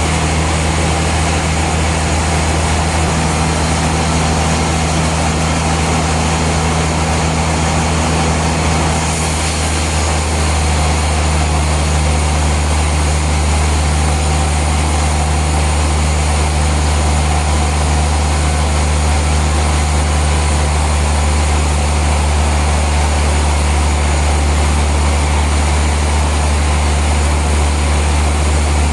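Heavy sawmill machinery running with a steady, loud low drone. The sound shifts slightly about nine seconds in, then holds steady.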